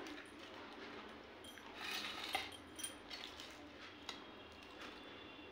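Metal fork clinking and scraping on a steel plate while twirling chowmein noodles, with a cluster of light clinks about two seconds in and one more click near four seconds.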